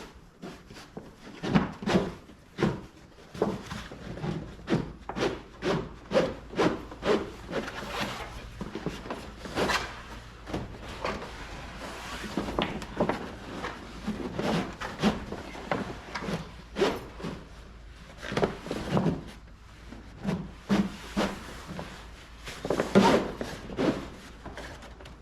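Canvas Jeep top being handled and worked into place: irregular rubbing, scraping and knocking strokes, roughly one or two a second.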